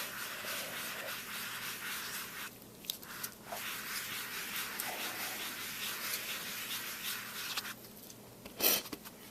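Sponge ink applicator rubbing Distress ink onto cardstock in small circles, a steady scratchy rubbing with short pauses as the sponge is lifted.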